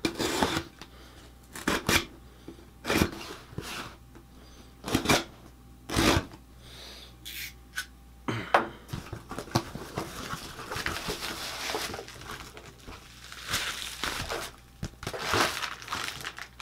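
Razor blade slitting the packing tape on a cardboard box in several sharp strokes, then the box being opened and plastic packing crinkling as it is pulled out.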